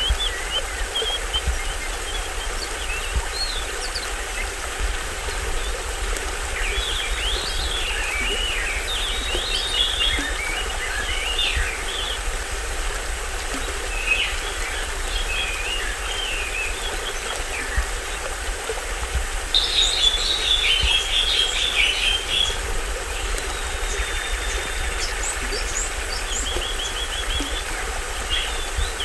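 Small streamlet waterfall splashing and rushing steadily, with forest birds chirping and calling over it in several bouts. The busiest, loudest run of rapid chirps comes about two-thirds of the way through.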